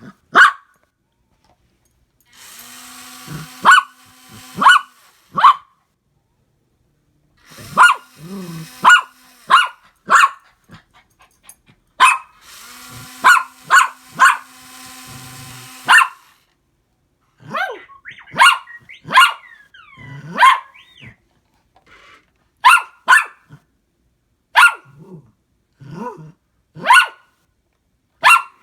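A dog barking repeatedly at a toy R2 astromech droid, sharp single barks about a second apart, some with a growl. In three stretches the droid's motors whir steadily beneath the barks.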